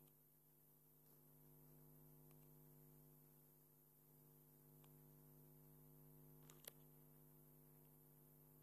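Near silence: a faint steady electrical hum, with one faint click about two-thirds of the way through.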